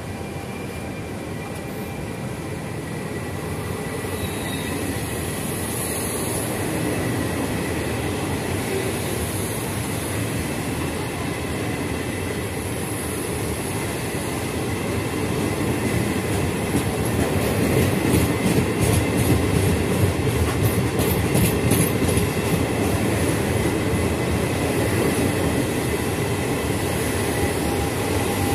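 Regional passenger train of locomotive-hauled coaches rolling past on the nearest track, a steady rumble that grows louder about halfway through, with a quick run of wheel clicks over the rail joints in the middle.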